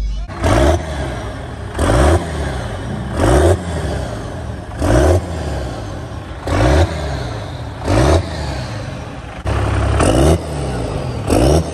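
Diesel pickup engine being revved over and over, a loud rev about every second and a half, each climbing and dropping back. One rev near the end is held a little longer.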